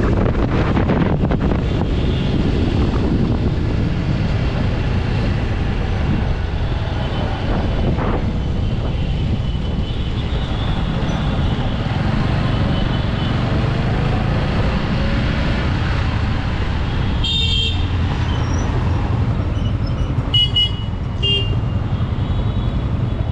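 Motorcycle riding along a road in traffic: the steady rumble of the TVS Apache RTR 160 4V's engine and wind noise. Vehicle horns honk once about three-quarters of the way through, then twice more shortly after.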